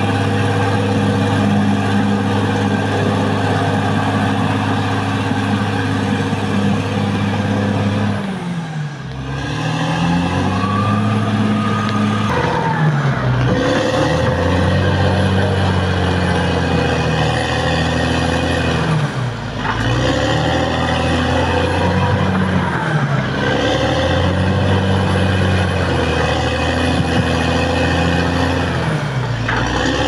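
Caterpillar D6R XL bulldozer's diesel engine running loudly. From about eight seconds in, its pitch repeatedly drops and climbs back every three seconds or so as the machine works.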